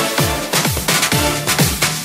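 Electronic dance music with a steady beat, played through a sonido sound system; its deep bass notes slide down in pitch on each hit.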